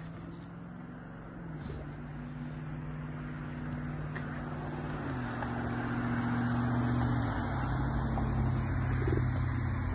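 A motor vehicle's engine running and growing louder, its pitch dropping in steps three times: about a second and a half in, around the middle, and near three-quarters through.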